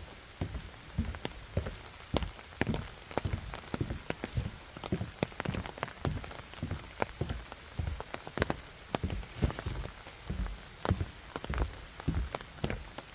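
Rain falling, with many individual drops striking close by as sharp, irregular ticks and soft thuds, several a second.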